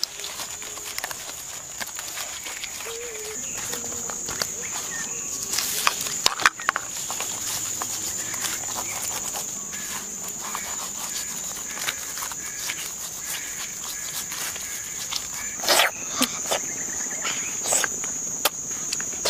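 Steady high-pitched buzzing of insects in the undergrowth, with scattered rustles and clicks from footsteps and hands moving over dry palm-leaf litter, a few sharper rustles near the end.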